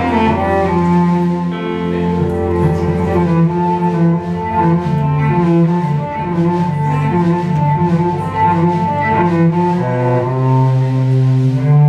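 Live band playing an instrumental passage without singing: bowed cello with electric guitar, bass guitar and accordion.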